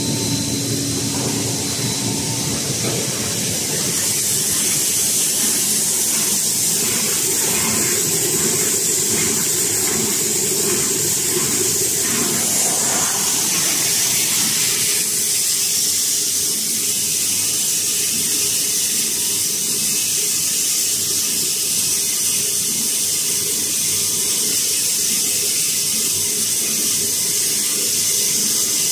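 Plastic pelletizing line for PE flakes running, a steady loud hiss of machinery, with plastic pellets streaming out of a discharge pipe into a stainless steel bin.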